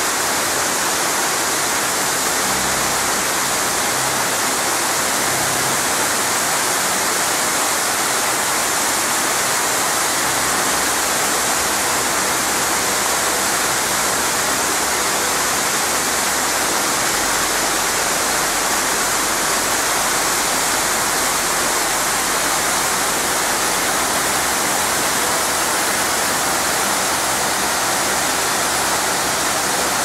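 Mountain waterfall falling over a rocky cascade: a loud, steady rush of white water that holds unchanged throughout.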